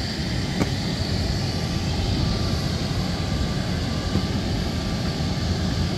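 Steady jet-turbine noise from aircraft on the airfield: a low, even rumble with a faint high whine over it.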